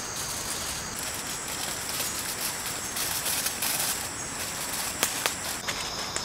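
Outdoor forest ambience: steady high-pitched insect song over an even hiss, the insect tone shifting about a second in and again near the end, with a couple of sharp clicks about five seconds in.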